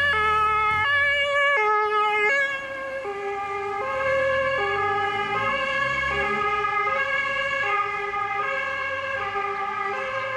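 Ambulance's German two-tone siren (Martinshorn), switching between a high and a low note about every three quarters of a second. About two and a half seconds in it drops in level and carries on more quietly.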